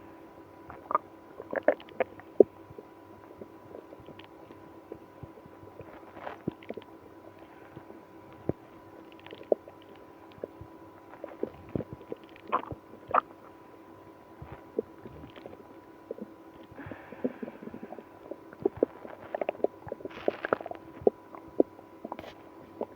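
Stomach and bowel gurgling: many short, irregular pops and squelches with a few louder ones. These are the digestive noises of a person with IBS after drinking milk and prune juice.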